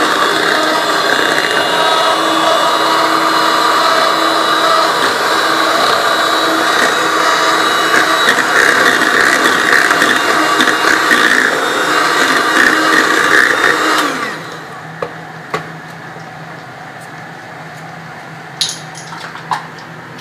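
Electric mixer beating cake batter, running steadily, then switched off about fourteen seconds in; a few light clicks and taps follow.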